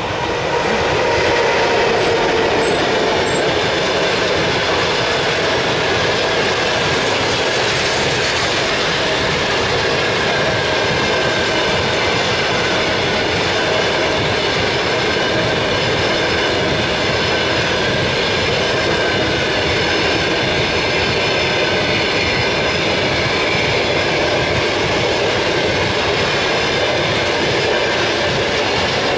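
EP1M electric locomotive and its passenger coaches passing close by: a loud, steady rush of wheels running on the rails. It swells about a second in as the locomotive goes past, then holds steady as the coaches run by, with faint steady tones over the noise.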